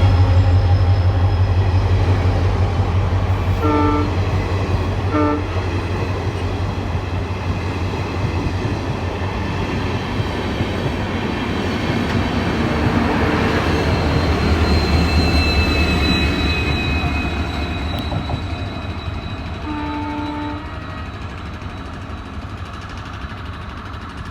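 Train running on the rails with a steady rumble that swells and then fades. Its multi-tone horn sounds two short blasts about four and five seconds in, and a longer blast about a second long near the end.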